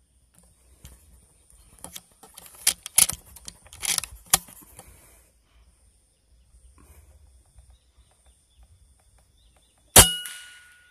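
An air rifle fires once near the end: a sharp crack with a short metallic ring that fades over about half a second. Earlier, from about two to five seconds in, there is a run of knocks, clicks and rustling from handling the gun.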